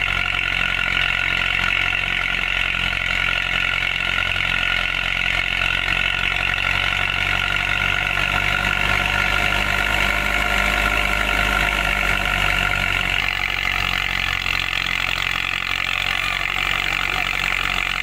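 Belarus tractor's diesel engine running steadily, driving a wheat thresher with a constant mechanical hum.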